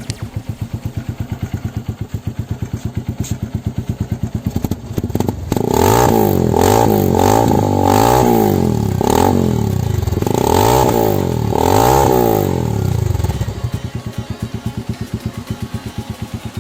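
Honda 150cc motorcycle with an Akrapovic slip-on exhaust idling with even exhaust pulses. About five seconds in, the throttle is blipped repeatedly for roughly eight seconds, the engine rising and falling several times, and then it drops back to idle.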